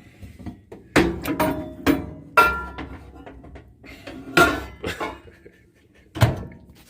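A run of about seven irregular knocks and clinks of hard objects, some ringing briefly like glass or metal being struck, as a glass of water is forced into a water heater.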